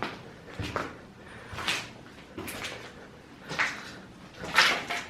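Footsteps crunching and scraping over debris on a hard floor, about one step a second, with small clinks of loose metal bits and glass underfoot.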